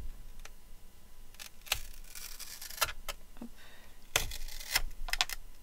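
Clear plastic packaging being peeled off and handled on a craft foil machine: crinkling rustles, loudest about four seconds in, with a few sharp clicks.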